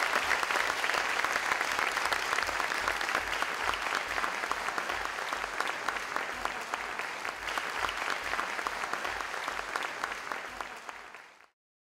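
Audience applauding: a dense crowd of clapping hands that eases slightly and then fades out near the end.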